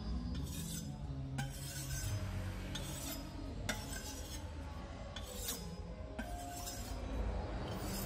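Large kitchen knife blade stroked repeatedly across a wooden block coated with orange abrasive grit, a rasping scrape about once a second, stropping the freshly ground edge.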